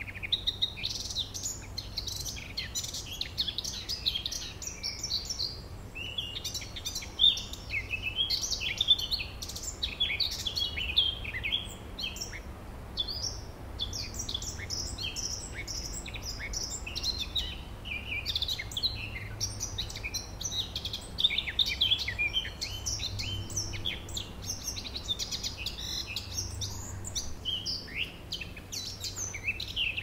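Eurasian blackcap and garden warbler singing: rich, fast warbling phrases that come one after another without a break. A faint steady low hum runs underneath.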